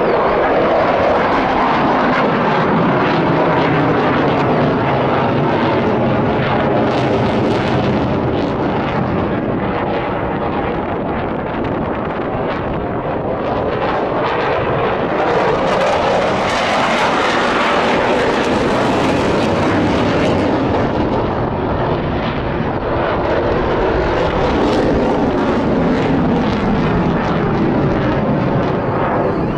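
Loud, continuous jet engine roar of a single-engine F-16 Fighting Falcon flying a display overhead, swelling and growing brighter about halfway through, then easing back.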